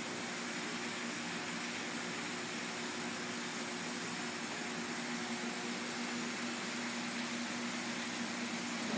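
Steady hum and even hiss of a large aquarium's filtration: the sump's pump running and water moving through the sump beneath the tank.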